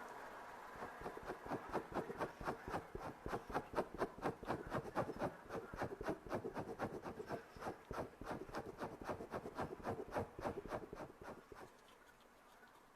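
Quick, short scratchy strokes of a makeup tool drawing in the eyebrows close to the microphone, about four or five a second, stopping about a second and a half before the end.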